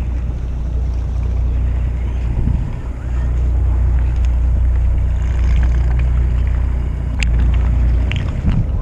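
Fishing boat's engine running with a steady low hum, with wind buffeting the microphone; a few sharp clicks near the end.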